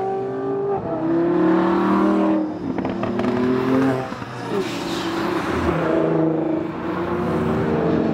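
Performance car engines accelerating and passing one after another, the engine pitch rising and falling several times.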